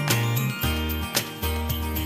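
Background music with a steady beat: sustained bass notes that change every half second or so, under bright jingling percussion.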